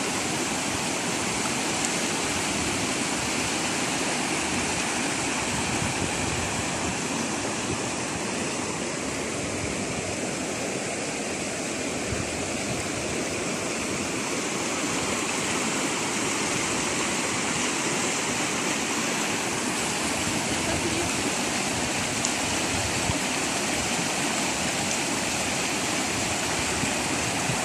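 Shallow, fast stream rushing over stones and small rapids: a steady, even rush of water.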